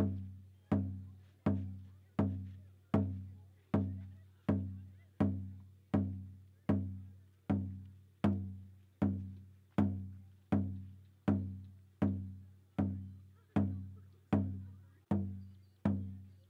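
Background music made of a low pitched note struck at a steady pace, about every three-quarters of a second, each note dying away before the next.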